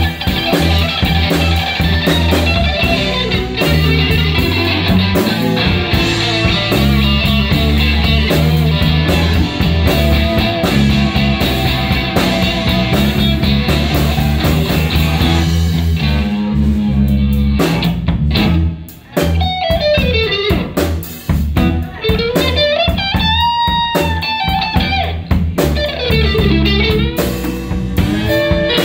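Live electric blues band playing an instrumental passage: electric guitars over a steady bass guitar line and drum kit. About two-thirds of the way through, the bass and drums fall away, leaving a lone guitar playing notes that slide up and down in pitch.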